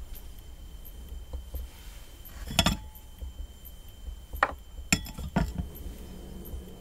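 Steel sprockets of a bicycle cassette clinking as they are picked up and handled. There are a few sharp metallic clinks: one about two and a half seconds in, then three more about half a second apart.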